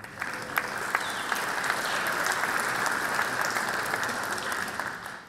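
Audience applauding. The applause swells within the first half second, holds steady, and dies away near the end.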